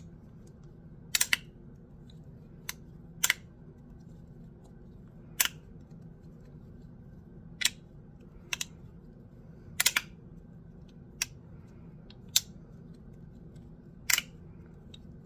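Magnetic bean-shaped fidget slider, its halves slid apart and snapping back into place: about ten sharp clicks, some in quick pairs, spaced a second or two apart.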